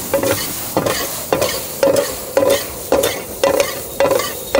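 Metal spatula scraping and knocking in a metal frying pan about twice a second, each stroke ringing briefly, over the hiss of onions, green chillies and tomatoes frying in butter.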